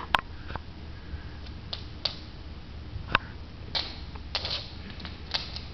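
Scattered light clicks and taps, a small dog's claws on a hardwood floor as it noses about, with a few short rustling bursts.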